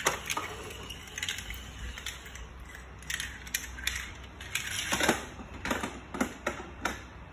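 Hard plastic toy vehicles and playset pieces being handled on a tile floor: a string of irregular clicks and knocks, busiest in the second half.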